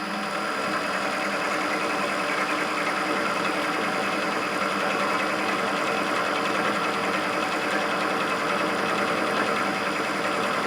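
Clausing 8520 milling machine running steadily, its cutter taking a pass across the flat of a steel T-nut held in the vise. The sound of the cut swells slightly about half a second in and then holds even.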